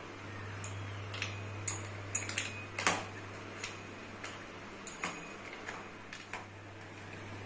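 Stainless steel screw-type sev maker being closed: its lid and threaded plunger rod give a string of irregular sharp metal clicks as they are fitted and screwed down, the loudest about three seconds in, over a steady low hum.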